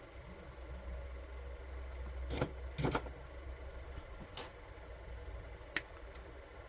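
A few sharp clicks and light metallic clinks of small metal parts being handled on a work surface, the loudest pair about two and a half to three seconds in, over a low hum that fades after about four seconds.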